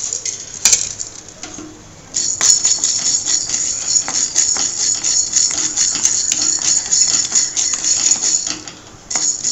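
Wooden spatula stirring chana dal and urad dal roasting in a metal kadai: a quick, dense rattle and scrape of the dry lentils against the pan. It starts about two seconds in and stops shortly before the end.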